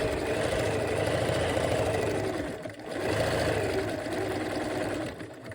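Bernina 1130 sewing machine running steadily, stitching a decorative stitch. It pauses briefly a little under halfway through, then runs again and stops near the end.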